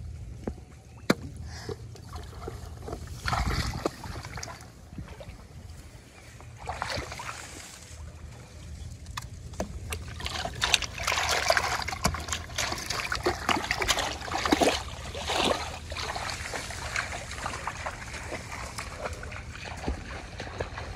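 Shallow paddy-ditch water splashing, sloshing and dripping as a plastic bottle fish trap is lowered into it and settled by hand, with scattered sharp clicks. The splashing is busiest a little past the middle.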